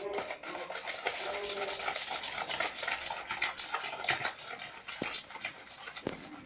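A utensil stirring a wet batter of egg, sugar and yogurt in a mixing bowl, a continuous scraping with quick clicks against the bowl's side, easing off near the end.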